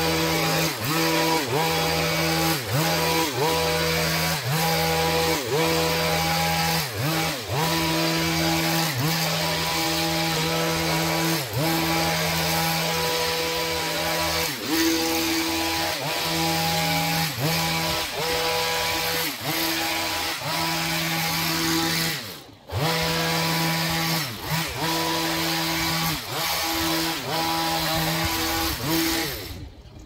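Petrol hedge trimmer's engine running at high revs while trimming a hedge, its pitch dipping briefly every second or so as it takes the load or the throttle is eased. The sound drops away sharply for a moment about three-quarters through and falls off again at the end.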